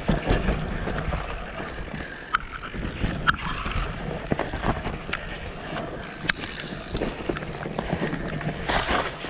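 Mountain bike riding fast down a rooty dirt trail: steady rumble of wind on the microphone and tyres on dirt, with many sharp rattles and knocks as the bike hits roots and bumps, and a louder rush of noise near the end.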